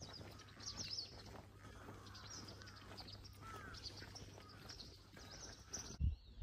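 Small birds chirping and twittering faintly, with short high chirps and a few curling whistled notes, over a low steady hum. A couple of low thuds come near the end.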